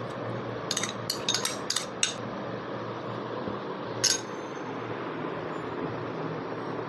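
A spoon and bowls clinking: a quick run of sharp clinks about a second in and one more about four seconds in, over a steady low hum.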